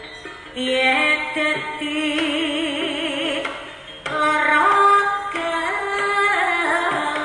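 Jaranan performance music: a loud, pitched lead melody with a wavering vibrato. It comes in about half a second in, pauses briefly near the four-second mark, then carries on in stepped notes.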